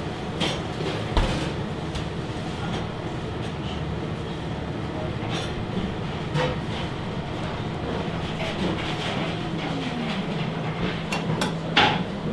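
Steady mechanical hum of commercial kitchen machinery and ventilation, with a faint tone sliding downward around the middle. Over it come a few light clicks and clinks of utensils and crockery on the steel counter, the sharpest about a second in and another near the end as the food is set in the plate.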